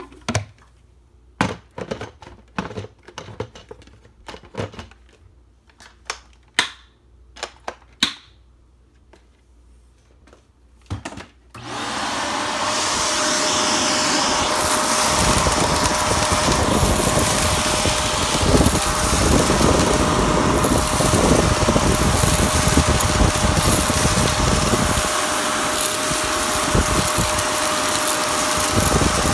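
Scattered sharp clicks for about twelve seconds, then a vacuum cleaner starts suddenly and runs steadily with a faint whine, sucking dry rice and macaroni off a rug.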